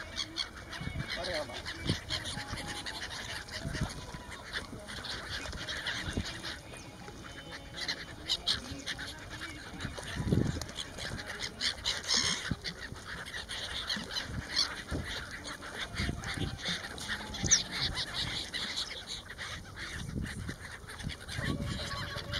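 A flock of gulls, mostly black-headed gulls, calling while scrambling for food: many short calls overlapping one another.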